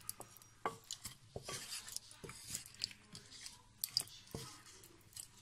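Wooden spatula stirring raw chicken feet in their marinade in a pot: irregular wet squelches, soft clicks and short scrapes.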